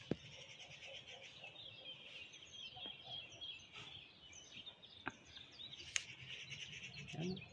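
Many small birds chirping at once, a thin continuous twittering, with two sharp clicks about a second apart late on.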